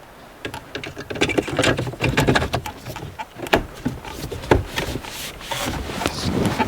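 Plastic interior trim parts of a car's center console being handled and fitted around the gear shifter: an irregular run of light clicks and knocks, with one sharper knock about four and a half seconds in.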